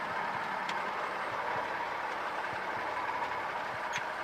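Cessna 172 cabin noise: the piston engine running at low power, with a steady, even hum while the plane rolls out on the runway after landing.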